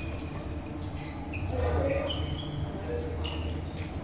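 Court shoes squeaking in short high chirps on a wooden sports-hall floor as badminton players move, with a couple of sharp clicks near the end, over a steady low hum.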